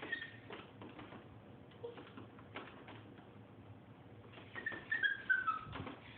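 A dog whining in high-pitched calls that slide downward in pitch, growing louder near the end, with a few faint clicks.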